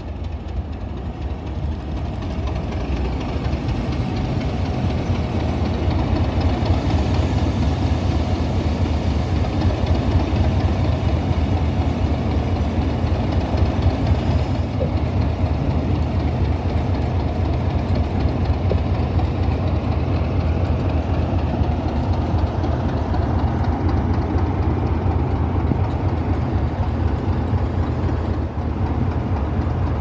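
Two Class 37 diesel locomotives' English Electric V12 engines working under power as they pass close by, getting louder over the first few seconds and then holding a steady, deep engine note.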